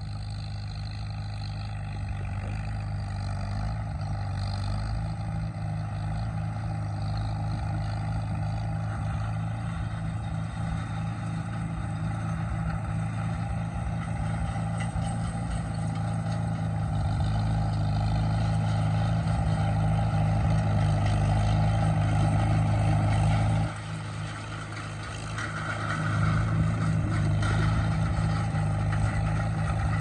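Farmall H tractor's four-cylinder engine running steadily as it pulls a hay rake, growing louder as it comes closer. The sound drops suddenly about three-quarters of the way through, then swells again.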